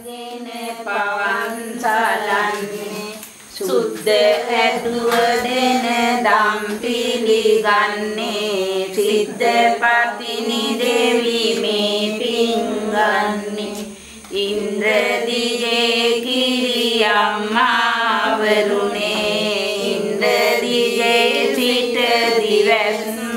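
Unaccompanied singing of a Sinhala devotional hymn to the goddess Pattini, in drawn-out phrases with short breaks about three and a half and fourteen seconds in.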